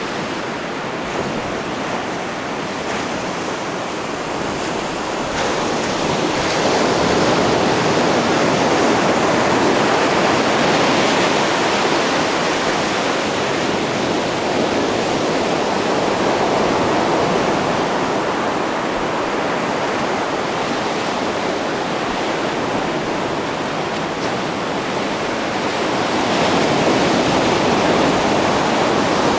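Ocean surf washing up a sandy beach, a steady rush that swells about six seconds in and again near the end.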